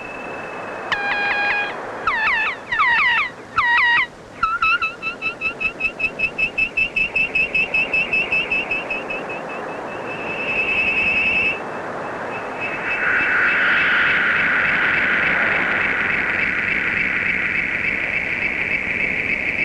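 Electronic synthesizer score. A held tone gives way about a second in to bending, gliding tones, then a fast pulsing warble of about four pulses a second, and from about two-thirds of the way in a long wavering drone on two pitches.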